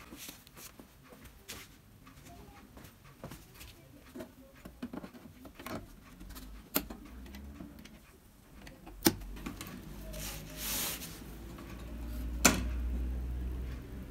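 Light handling noises: scattered small taps and ticks with three sharper clicks, as cable connectors are plugged back into the TV's circuit boards, with a brief rustle near the end.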